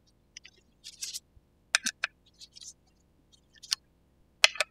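Metal hex-key tool clicking against and scraping on the mounting bolts of a hydraulic disc brake caliper as it is fitted and tightened onto the fork. A brief scrape comes about a second in, then sharp clicks in ones and twos.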